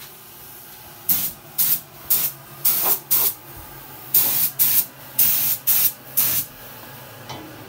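Compressed-air gravity-feed spray gun spraying paint in short bursts of hiss, about ten of them, starting about a second in.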